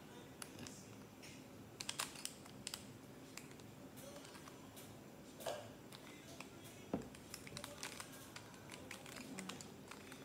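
Plastic Rubik's cube being twisted by hand: faint, irregular clicks as its layers turn and snap into place.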